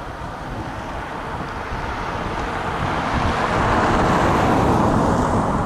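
2TE116 two-section diesel locomotive working hard at the head of a loaded tank train, its exhaust smoking. The engine noise swells to its loudest about four seconds in as it draws nearer, then eases slightly.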